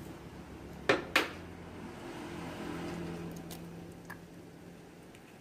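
Chicken egg rapped twice on the edge of a frying pan to crack its shell, two sharp knocks about a second in, then the shell broken open and the egg let into the pan.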